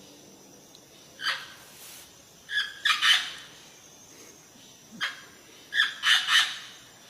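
A bird calling in short bursts: a single call, then a quick run of calls, repeated about every few seconds.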